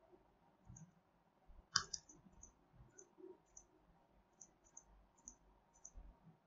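Faint computer mouse button clicks at irregular intervals, about a dozen in all, with one louder click about two seconds in, as lines are picked one by one to trim in the drawing.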